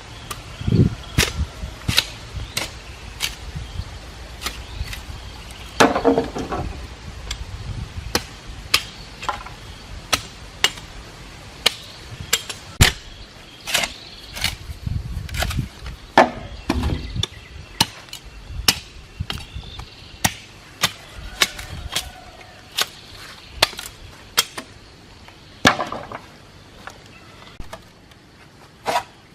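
A hand tool striking wood over and over: sharp, irregular knocks a little more than once a second, with a few heavier, duller blows among them.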